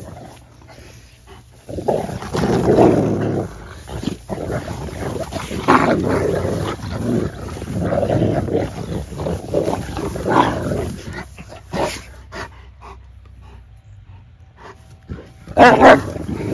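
Cane Corso and pit bull dogs growling at each other during rough play-fighting, in repeated bouts with a lull late on and a loud outburst near the end.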